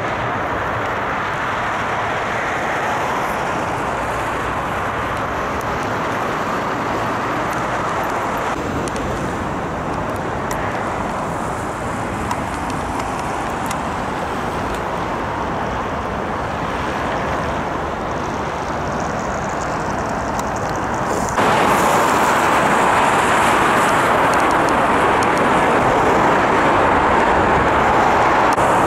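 Steady motorway traffic noise: a continuous rush of passing cars and trucks, with no siren. About two-thirds of the way through it jumps suddenly to a louder, brighter rush.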